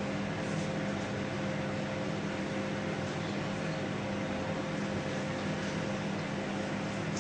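Microwave oven running on full power in microwave mode: a steady, even hum with a constant tone.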